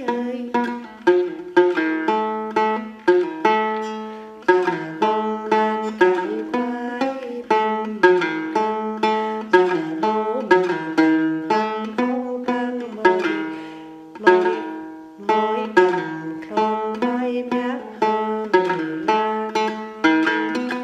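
Đàn tính, the Tày two-string gourd-bodied lute, plucked in a continuous then melody. Each note starts sharply and dies away, a few of them sliding in pitch.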